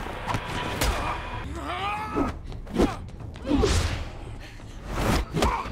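Staged fight sound effects: about five sharp hits and body thuds mixed with grunts and short exertion sounds from the fighters, over a low rumble.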